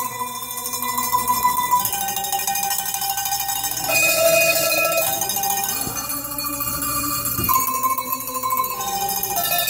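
A melody played on a set of tuned Alpine cowbells, each bell shaken in a fast tremolo so its note rings on, holding each note for a second or two before moving to the next.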